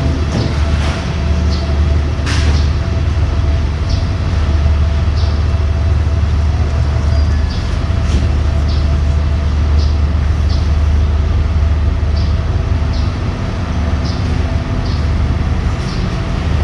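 Steady low rumble of a train at a railway station, with light clicks recurring about once or twice a second.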